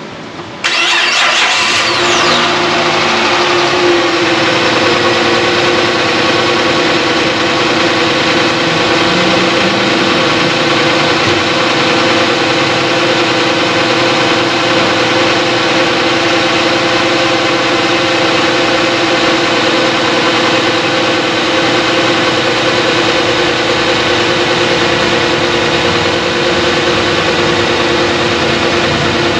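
Chrysler 300's engine starting: it catches less than a second in, with a short burst of cranking and revving, then settles into a steady idle. This is the first start after the transmission filter change and ATF refill.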